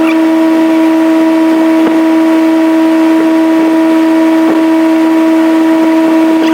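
Boat motor running at a steady speed: a loud, unchanging hum.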